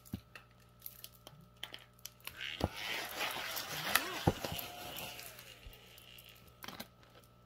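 A paper scratch-off lottery ticket being handled and set under a clip: rustling with a few sharp clicks, loudest a few seconds in, then fading.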